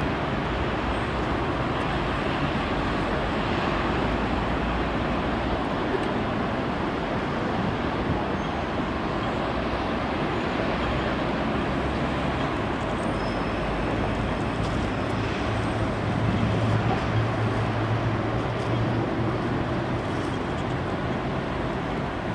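Distant jet airliner engines across an airfield: a steady roar, with a low hum that swells a little about two-thirds of the way through.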